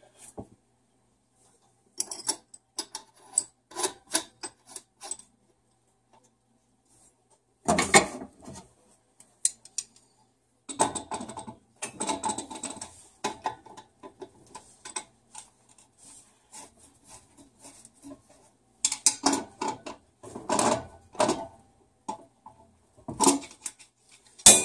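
Irregular metallic clinks, knocks and scrapes of tongue-and-groove pliers gripping and turning a brass automatic air vent (Honeywell Supervent) on its threaded fitting, in short clusters with pauses of a second or two between.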